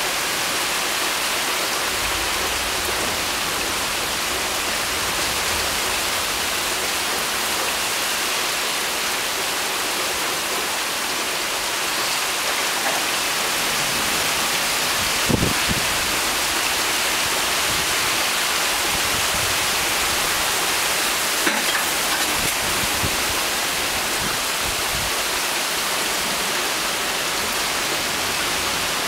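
Heavy rain pouring steadily onto pavement and parked cars, an even hiss throughout. A couple of brief sharp taps come through about halfway and again some six seconds later.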